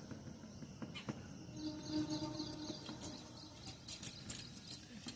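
Small birds chirping: short, very high chirps that come thick and fast from about two seconds in.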